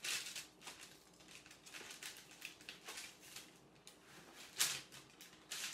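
A large kitchen knife cutting through chilled, sugar-coated cookie dough: a series of short, soft scrapes and taps as the blade presses through and meets the board beneath, with a louder scrape about four and a half seconds in.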